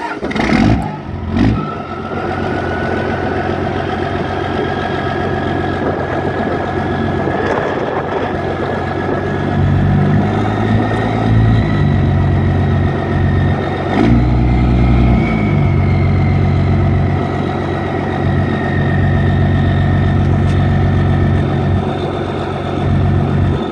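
1998 Cummins 12-valve 5.9 L inline-six turbodiesel running, with a high turbo whistle from its S366SXE turbocharger over the diesel idle. The whistle climbs slowly in pitch, then eases back. Two quick revs come in the first couple of seconds, and a few more come through the middle.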